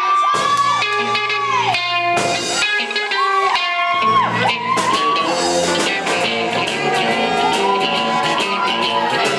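Music with a prominent guitar: recorded or live rock-style music with long bending lead notes.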